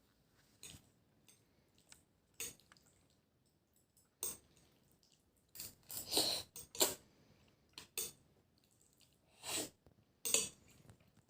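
Scattered short clinks and clatters of dishes and cutlery at a meal, about a dozen irregular sounds with a couple of longer noisy ones around the middle.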